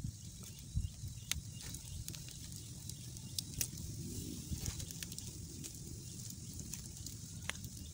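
Wood-and-charcoal campfire crackling, with scattered sharp pops and a faint hiss over a low steady rumble, under a whole chicken roasting on a spit.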